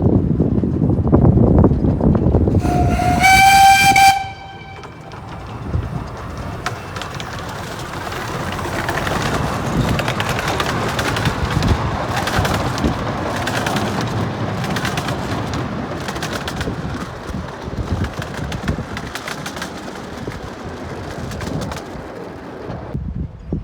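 A miniature railway locomotive sounds one whistle of about a second and a half, over wind buffeting the microphone. Then a train runs by, with a steady rushing noise and many sharp clicks of wheels over the rails, fading near the end.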